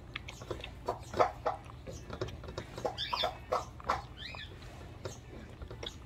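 A dog eating dry kibble from a bowl: an irregular run of quick crunches and clicks. Two brief high-pitched chirps come about three and four seconds in.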